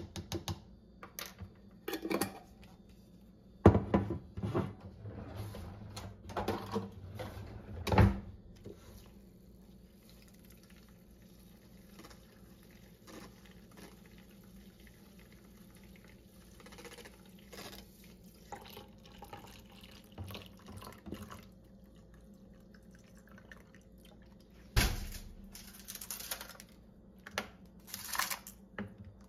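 Clicks and taps of a plastic measuring spoon against a plastic tumbler as powder is spooned in, then the faint steady whir of a small battery milk frother stirring the drink. Near the end there is a single heavy knock followed by more handling clicks.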